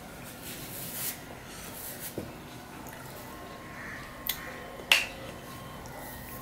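Mouth sounds while chewing the last of a meal: a few sharp wet smacking clicks, the loudest about five seconds in.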